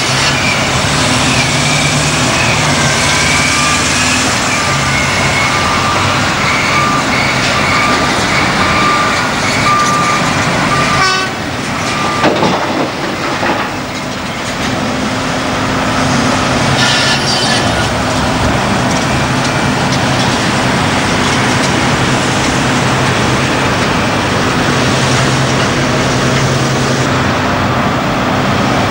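Heavy diesel engines of earthmoving machinery and dump trucks running steadily, with a high whine over the first ten seconds or so. Around twelve seconds in the sound briefly drops, with a few knocks, then the engine drone resumes.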